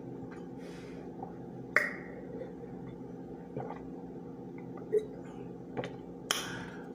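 A person sipping a drink from a glass jar and swallowing, over a steady low hum. A few small clicks come through, and there is a short breathy rush near the end.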